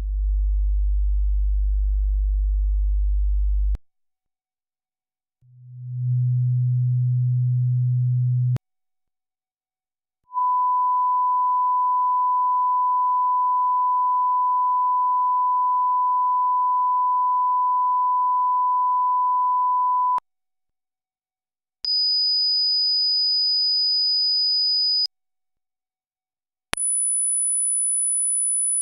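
Tape line-up test tones: a series of single steady pure tones, each higher in pitch than the last, with a second or two of silence between them. A very low hum-like tone, then a low tone, then a long mid-pitched reference tone of about ten seconds, then a high whistle, and near the end a very high whistle.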